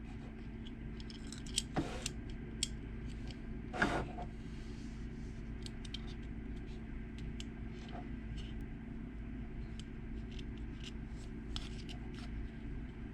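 Small metallic clicks and scrapes of a car hatch lock assembly being worked with a piece of wire, with two louder clicks in the first four seconds, over a steady low hum.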